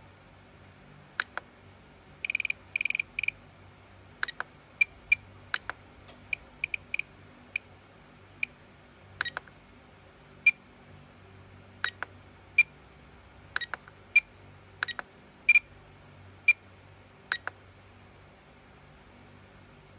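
Spektrum DX8e transmitter giving short high beeps as its roller and buttons are worked through the setup menus. A quick run of beeps comes about two seconds in, then single beeps at irregular intervals of about half a second to a second.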